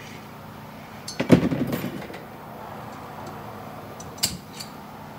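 Screwdriver prying at a steel 4L60E 3-4 clutch drum to pop out its snap ring and get at the clutch pack. There is a loud metallic clank with ringing about a second in, then two light metal clinks near the end.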